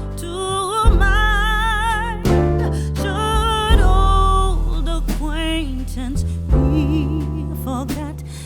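Background music: a slow song whose melody line wavers in long held notes above deep sustained bass notes.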